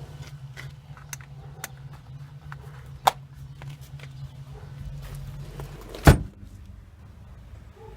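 Small clicks and taps over a steady low hum, with one sharp click about three seconds in. The hum stops, and moments later the Mitsubishi Lancer's car door shuts with a loud thump about six seconds in.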